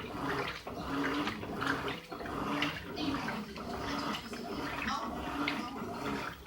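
Electrolux LTD15 top-loading washing machine washing a load of clothes in a full tub: water sloshing and churning, with a short motor hum roughly once a second as the wash action swings back and forth.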